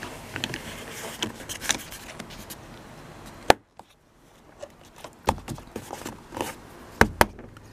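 Scattered clicks and knocks of plastic car-door interior parts being handled and fitted into place during reassembly, with one sharp click about three and a half seconds in and a few more knocks near the end.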